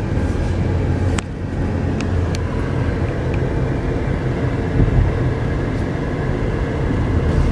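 Steady low road and engine rumble inside the cabin of a 2009 Chevy Malibu LTZ with a V6 engine, driving along smoothly, with a few faint ticks.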